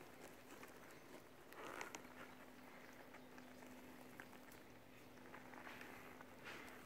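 Near silence with faint rustling and light clicks from a leather tote bag and its fabric lining being handled, including two soft swishes, under a faint steady hum.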